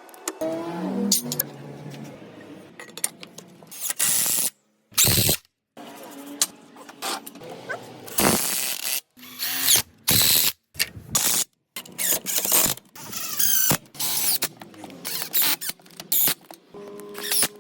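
Power tool work, a drill or driver running in short spurts with clattering in between, chopped into quick cuts that drop to dead silence several times.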